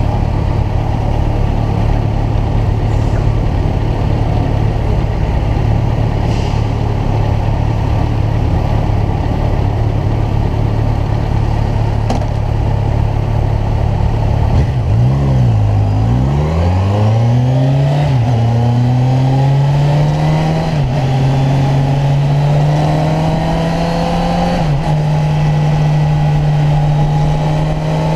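Kawasaki Ninja 1000's inline-four engine running at a steady pitch under heavy wind rush. About halfway through, its pitch dips and then climbs in three rising pulls, each cut by a quick drop as it shifts up, before it settles into a steady cruise.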